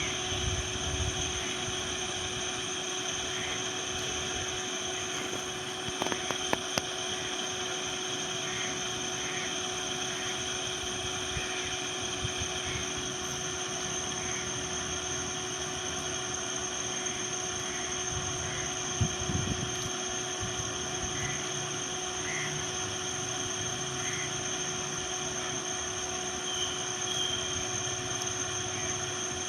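Steady outdoor background: a continuous hum with several constant tones, short high chirps every few seconds, and a couple of brief knocks about six seconds in.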